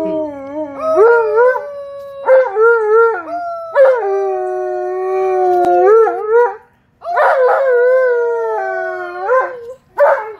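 Alaskan Malamute howling in long, wavering phrases, with a girl howling along at a different pitch. The howling breaks off about seven seconds in, resumes, and ends with a short howl near the end.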